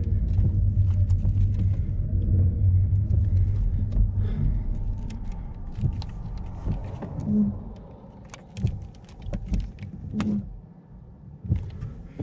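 Low rumble of a car driving, easing off about halfway through, with scattered clicks and knocks.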